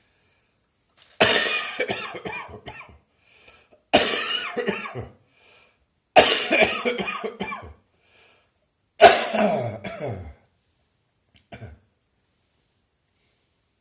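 A person coughing in four fits of several quick coughs each, a couple of seconds apart, then one short cough near the end: a cough from bronchitis that has not yet cleared.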